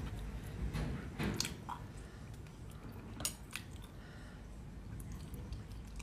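Cooked large sea snail meat being torn and peeled apart by hand, close to the microphone, giving scattered small wet squishes and crackling clicks, a few sharper ones about a second in and again about three seconds in.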